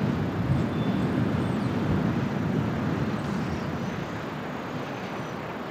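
Low, dense outdoor rumble of the open harbour air, with wind and distant port and ship noise, easing off a few seconds in. A few faint, short high chirps sit above it.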